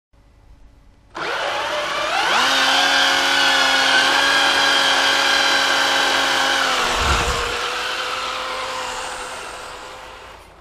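Brushless electric motor of an RC buggy whining as it accelerates, its pitch rising for about a second and then holding steady at speed. A brief low thump comes about seven seconds in, after which the whine fades away.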